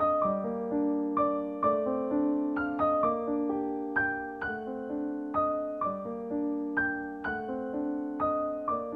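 Soft piano background music: a slow, gentle pattern of struck notes and chords, each note fading before the next.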